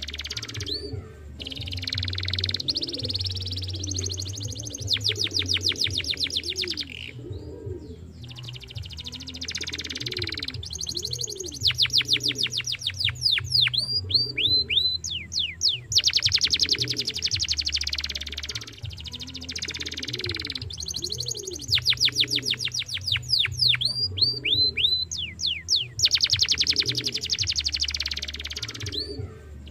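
Domestic canary singing a long song of very fast trills and rolls, with series of quick falling whistled notes. The phrases are broken by short pauses.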